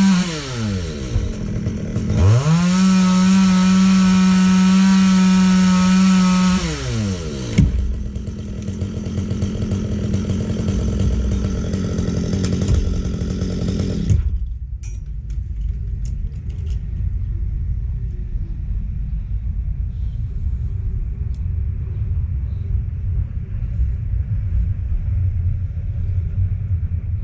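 STIHL MS 194 T top-handle two-stroke chainsaw revved at full throttle, falling off briefly about a second in and running high again, then dropping back to idle after about seven seconds. About halfway through the higher sound cuts out, leaving a low rumble.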